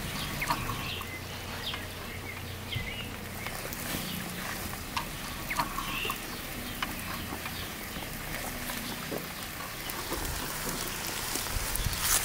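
Outdoor garden ambience: scattered short bird chirps over a low steady hum and faint hiss.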